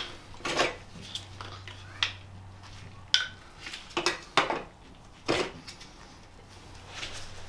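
Metal bike parts and tools clinking and knocking while being handled during assembly of a balance bike's handlebars: irregular sharp clinks, a few with a brief metallic ring.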